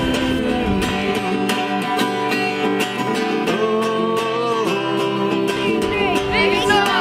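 Background song led by acoustic guitar, playing between sung lines.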